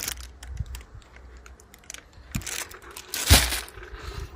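Clear plastic packaging bags crinkling and crackling as they are handled, with one loud sharp crackle about three seconds in.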